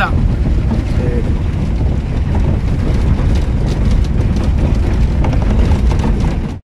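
A vehicle driving over a rough, rocky dirt road, heard from inside: a loud, steady low rumble of engine and tyres with scattered knocks and jolts from the rough surface. It cuts off suddenly near the end.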